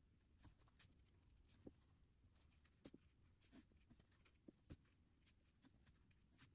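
Faint, irregular ticks and scratchy strokes of a paintbrush working watercolor on paper.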